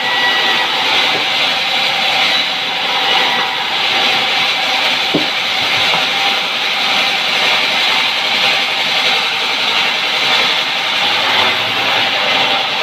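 Large vertical sawmill band saw running and cutting lengthwise through a mahogany log: a steady, loud sawing noise with a faint hum from the machine underneath.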